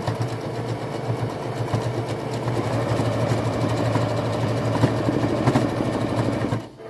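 Electric sewing machine stitching the side seam of a dish towel, running steadily with its fast, even needle strokes over the motor hum, then stopping just before the end.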